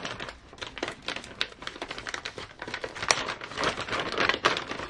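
Clear plastic parts bags crinkling and rustling as they are handled and shuffled, a dense run of sharp crackles and clicks.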